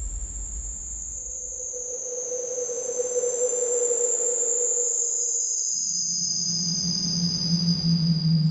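Dark ambient atmosphere loop: thin, high sustained tones that slowly sink in pitch over a hissing bed, with a held mid drone that gives way to a deeper low drone a little past halfway.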